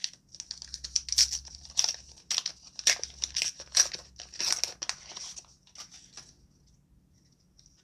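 A trading-card booster pack wrapper crinkling and tearing open in the hands, a dense run of sharp crackles that stops about six seconds in.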